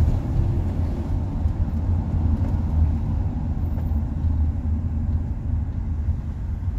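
Steady low rumble of engine and road noise inside the cab of a moving ambulance van.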